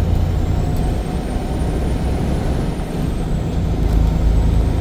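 Steady low engine and road rumble inside a moving semi truck's cab.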